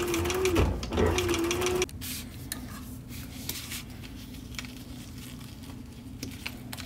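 Sewing machine stitching a leather zipper cover onto a zipper: a steady motor whine with rapid needle strokes, which dips briefly just under a second in and then stops abruptly about two seconds in. After it stops, only a low hum and a few light clicks from handling the zipper remain.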